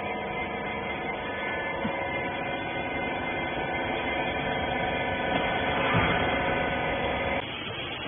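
Rag baler's hydraulic power unit, its electric motor and pump, running with a steady hum. There is a brief bump about six seconds in, and the hum drops away near the end.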